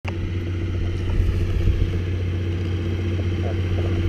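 John Deere 6150R tractor's six-cylinder diesel engine running steadily under load as it pulls a spring-tine cultivator through the field.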